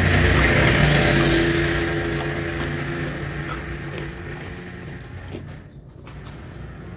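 A motor vehicle's engine passing by, loudest in the first two seconds and then fading away, with a few faint clicks.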